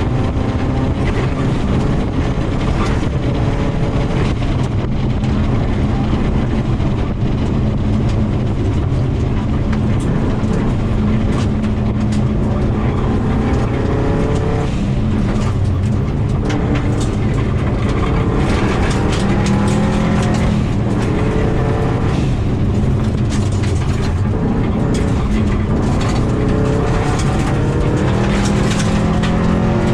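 2000 Subaru WRX's turbocharged flat-four engine running hard, heard from inside the car, revving up and dropping again at each gear change several times over gravel road noise.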